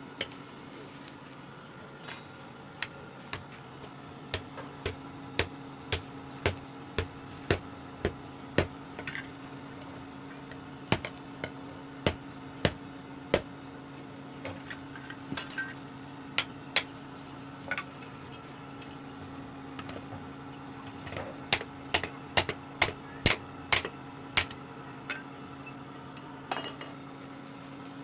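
Hand hammer blows on red-hot steel bar lying on a small steel anvil block, in runs of sharp strikes about one to two a second with pauses between runs. A steady low hum runs beneath.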